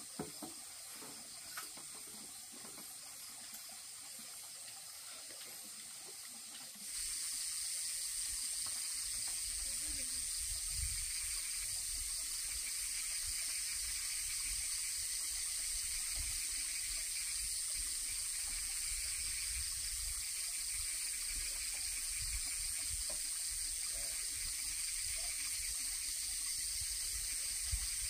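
A few faint clinks of dishes, then, about seven seconds in, a steady high-pitched hiss of night insects sets in suddenly and carries on, with low irregular rumbles beneath it.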